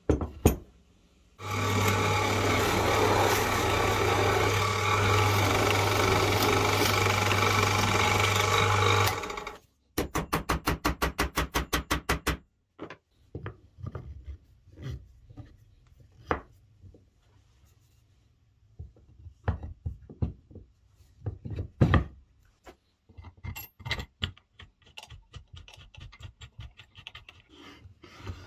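A power tool's motor runs steadily with a low hum for about eight seconds and cuts off. A fast even rattle of about seven beats a second follows for a couple of seconds. After that come scattered knocks and clicks of plywood parts, bolts and washers being handled and fitted together.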